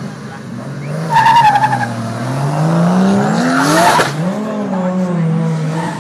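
Drift car pulling away with wheelspin: a short tyre squeal about a second in, then the engine revs climbing steadily, a burst of tyre noise about four seconds in, and the engine held at high revs with small lifts as it slides.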